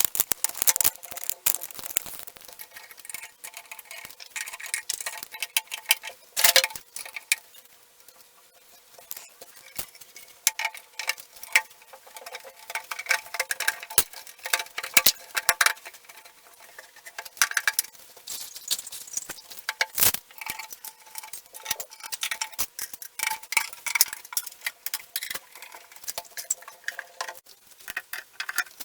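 Hands handling small metal fittings and desk parts during flat-pack furniture assembly: an irregular run of clicks, clinks and rustles, with two sharper knocks, one a few seconds in and one about two-thirds of the way through.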